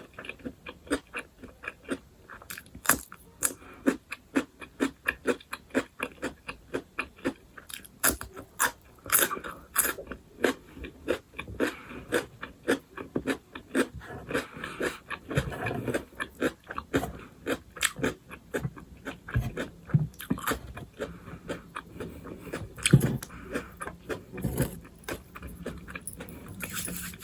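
Close-up chewing and crunching of food, with many sharp mouth clicks.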